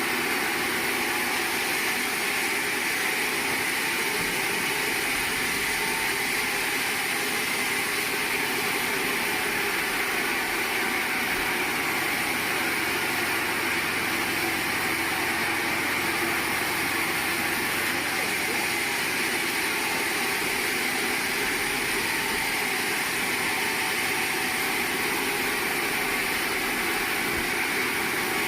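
Sawmill machinery running with a steady, even noise that does not change. No separate cuts or impacts stand out.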